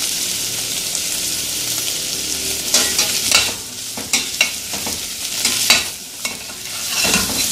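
Diced carrot and smoked bacon sizzling in butter in a stainless steel pot, stirred with a metal spoon. From about three seconds in, the spoon scrapes and knocks against the pot again and again over the steady hiss of the frying.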